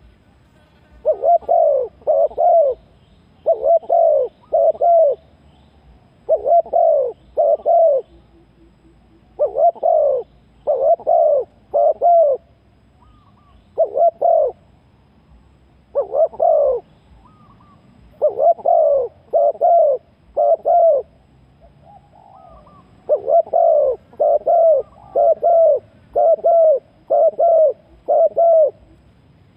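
Spotted dove cooing: loud low coos in groups of one to three, a few seconds apart, with a longer run of about eight coos near the end.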